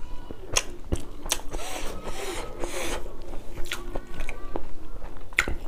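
Close-miked eating by hand: sharp wet clicks and smacks of chewing, with a rustling scrape between about one and a half and three seconds in as fingers gather rice on a banana leaf.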